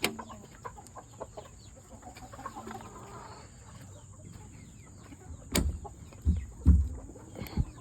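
Chickens clucking in a coop. A sharp knock and a few low thumps come in the last couple of seconds and are the loudest sounds.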